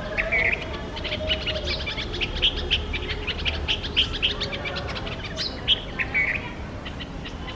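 A mixed flock of small birds (Indian white-eyes, red-vented-type bulbuls, sparrows and mynas) giving rapid, sharp, overlapping alarm calls, many chips a second, the mobbing racket of birds that have spotted a cat hiding in the bush below.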